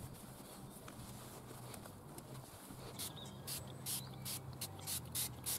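Hand spray bottle squirting onto a plastic headlight lens: a quick run of short hissing sprays, about three a second, starting about halfway in, after soft cloth wiping on the lens.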